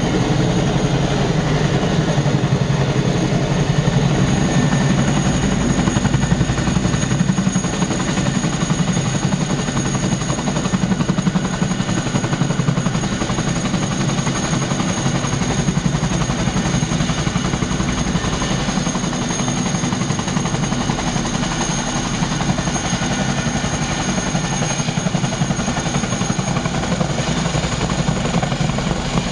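Boeing Chinook HC4 tandem-rotor helicopter taxiing on the ground with both rotors turning: a loud, steady, fast rotor beat with a thin, steady high whine above it.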